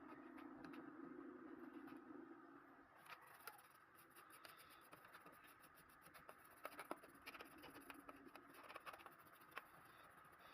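Faint, irregular small clicks and taps with a low hum that stops about three seconds in.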